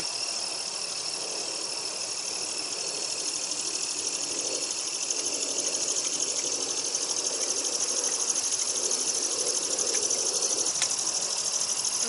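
A chorus of night insects trilling steadily: a dense, high-pitched, finely pulsing drone.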